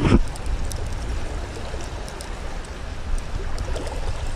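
Steady rush of a fast-flowing, muddy creek, with a low rumble underneath and a few faint ticks.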